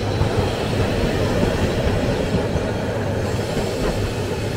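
Steady, loud rumble of a train running on rails.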